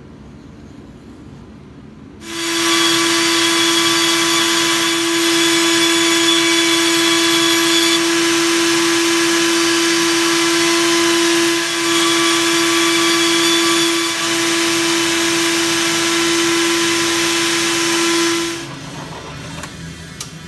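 Porter-Cable band saw running and cutting a circle out of a wooden board: a steady motor hum under a loud, even hiss of the blade through the wood. It starts about two seconds in, dips briefly twice, and stops near the end.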